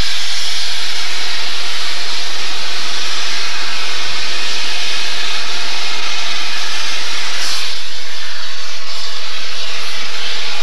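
Steam locomotive letting off steam: a loud, steady hiss that grows briefly brighter about seven and a half seconds in.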